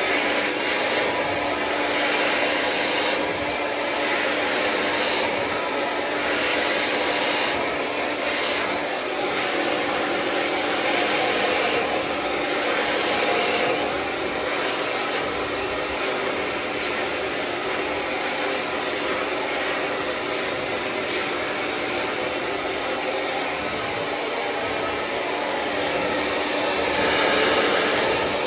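BaBylissPRO hair dryer running continuously, a steady rush of air over a steady motor hum. The air noise swells and eases every second or two as the dryer is swung toward and away while it works through hair on a round brush.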